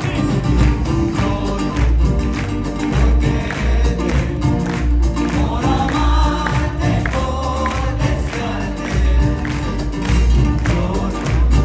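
Live band playing Peruvian music: a voice singing over percussion and a heavy pulsing bass beat.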